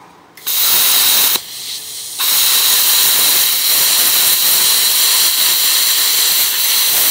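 Air plasma cutter (Hồng Ký HK 416 welder-cutter's plasma torch) cutting flat steel bar: a loud hiss with a high whine starts about half a second in, falters briefly about a second and a half in, then runs steadily as the cut is made.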